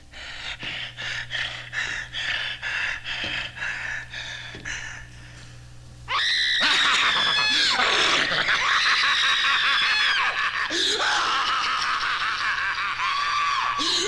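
Horror sound-effects recording: a run of short rasping sounds about twice a second, then from about six seconds a woman screaming, long high screams one after another.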